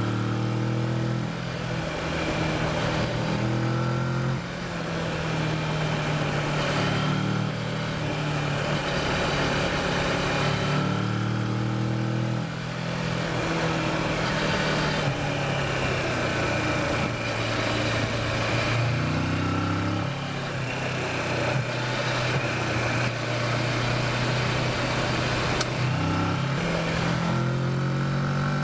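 Kawasaki Versys motorcycle engine under way, its revs rising and falling as it is ridden through a run of bends, with the rush of wind and riding noise over the engine.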